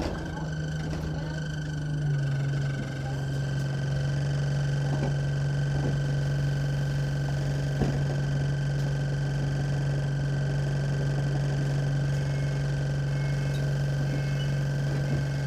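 Diesel engine of an Enviro 200 Dart single-deck bus idling at a standstill, heard from inside the saloon as a steady low drone. It settles a little lower about two seconds in, with a few faint clicks of rattle around the middle.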